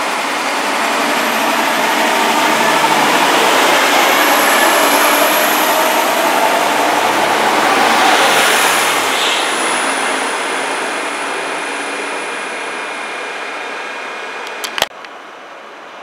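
ÖBB Cityjet electric multiple unit running along the station platform: a loud rumble of wheels on rail that swells as the train comes alongside and then slowly dies away, with a faint high electric whine over it. A sharp click comes near the end.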